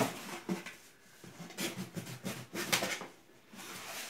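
Cardboard shipping box being opened by hand: a run of scrapes, taps and rustles as its flaps are worked loose, ending in a softer rubbing as the lid flap slides open.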